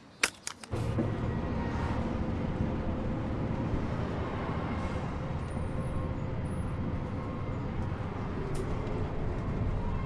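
A quick cluster of three or four sharp knocks, then the steady low rumble of a bus running, heard from inside the passenger cabin.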